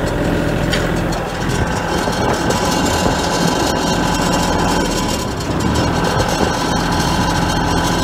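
Kioti compact tractor's diesel engine idling steadily.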